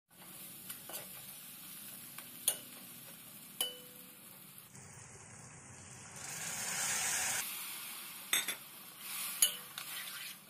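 Onion-tomato masala frying in a metal kadhai, a steady sizzle broken by a spatula clinking and scraping against the pan. About six seconds in, water poured into the hot pan gives a louder hiss for a second or so, then the stirring clinks resume.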